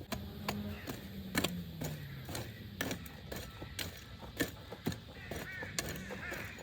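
Irregular sharp clicks and knocks, about two a second, over a low tone that slides slowly downward.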